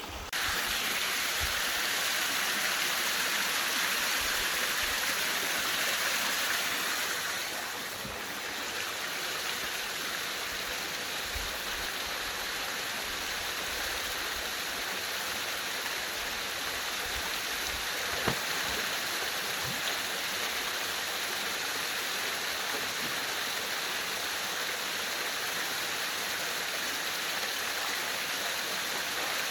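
Mountain stream rushing steadily over small falls and pools, a little louder for the first seven seconds or so.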